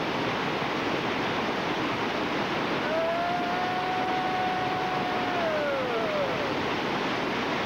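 Steady roar of whitewater churning in the hole at the foot of a 20-foot waterfall. About three seconds in, a long high-pitched tone cuts through, held for a couple of seconds before sliding down in pitch.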